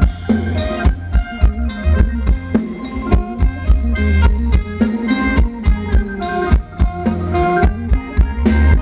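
Thai ramwong dance music from a live band: a steady drum beat over heavy bass, with held melody notes from the instruments and no singing.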